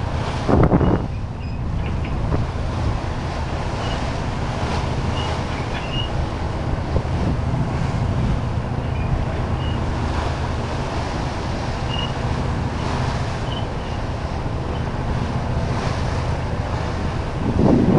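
Wind blowing across the microphone over choppy open water, with waves washing and the steady low hum of a boat's engine underneath. Two louder rushes come, one about a second in and one near the end.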